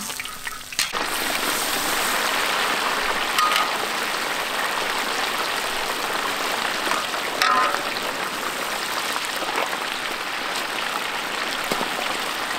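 Fish deep-frying in a large wok of hot oil: a steady, dense sizzle that comes in about a second in, with two brief clinks partway through.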